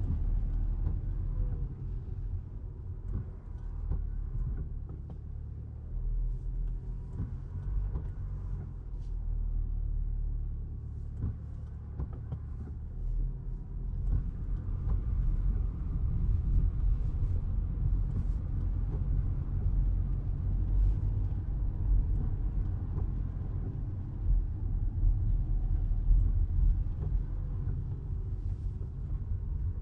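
Low, steady rumble of a Toyota Crown Athlete Hybrid (210 series) driving on wet roads, heard inside the cabin, with faint occasional ticks.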